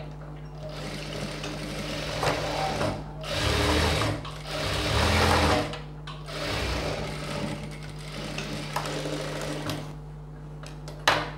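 Industrial sewing machine stitching a blouse seam in bursts, stopping briefly twice and running on more quietly before it stops; a single sharp click near the end.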